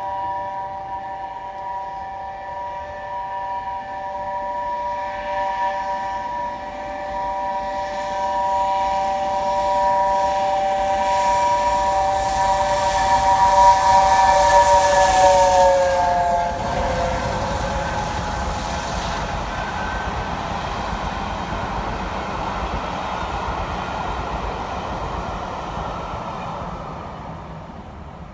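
Steam locomotive Tornado, an LNER Peppercorn A1 Pacific, sounding a long, held chime whistle of several notes as it approaches. The whistle's pitch drops as the engine passes, about sixteen seconds in, and it stops. The noise of the train running by on the rails follows and fades away near the end.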